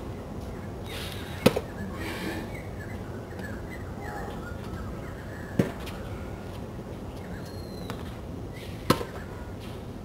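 Tennis racket striking a ball three times, each a sharp pop about three to four seconds apart, over a steady outdoor background hiss.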